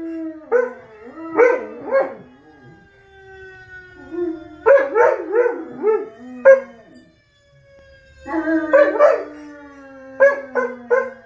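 German Shepherd howling: long drawn-out howls that slide slowly down in pitch, mixed with bursts of short yips and barks, with a brief pause about seven seconds in.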